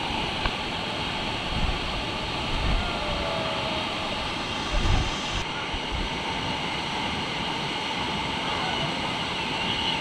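Waterfall pouring onto rocks and into a shallow pool: a steady, even rush of water, with a few low buffeting thumps on the microphone, the strongest about five seconds in.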